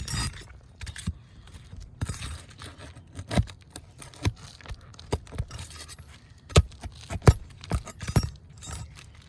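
Metal tool prying roofing nails out of asphalt shingles: irregular sharp metallic clicks and knocks with scraping between them, the two loudest knocks a little over halfway through.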